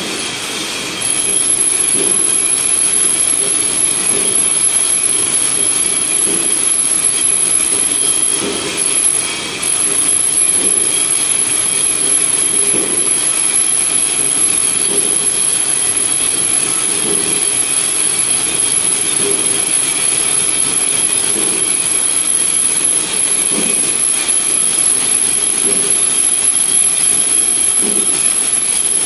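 Wire nail making machine running: a loud, steady mechanical din with a continuous high-pitched whine and dull low knocks recurring through it.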